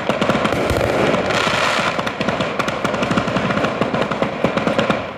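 Italian pyrotechnic firecracker battery (batteria) detonating: a dense, rapid, continuous rattle of bangs with no break, dropping away right at the end.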